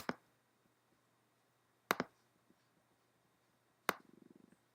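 Three sharp clicks of a computer mouse button about two seconds apart, each a quick double tick of press and release, then a brief faint rapid ticking near the end.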